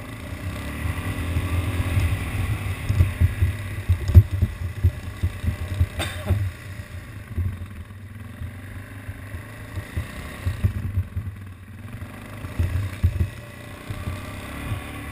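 ATV engine running as the quad drives over grass, with frequent uneven low thumps and one sharp knock about six seconds in.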